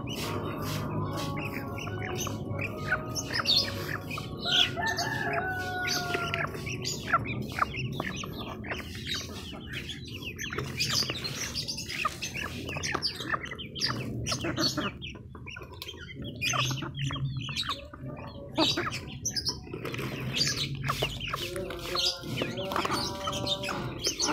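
A duck pecking and dabbling its bill in gravel and dirt: a quick, uneven run of small clicks and scratches, with a short bird call about five seconds in.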